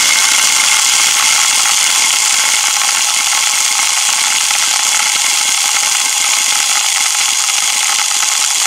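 Homemade soda-bottle airsoft machine gun firing full auto on compressed air at around 60 to 70 psi. The air rushes through the bottle with a steady loud hiss while the plastic BBs swirl, rattle and stream out of the barrel in a rapid continuous rattle.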